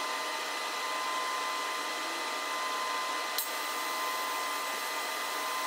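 Steady machine rushing noise with a thin steady whine on top, from a DIY metal powder-bed laser 3D printer running, with one brief click about three and a half seconds in.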